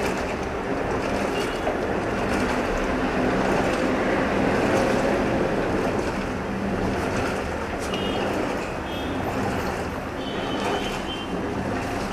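LG top-load washing machine in its main wash, churning and sloshing a load of jeans in water, over a low steady hum.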